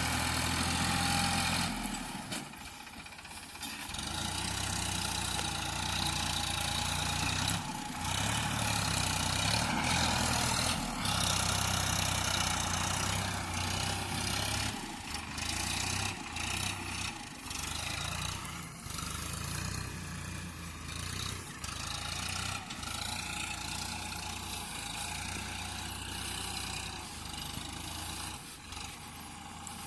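Diesel engine of a JCB backhoe loader at work: it keeps running, its note falls briefly and then picks up again under load. Scattered short knocks and clanks sound over it.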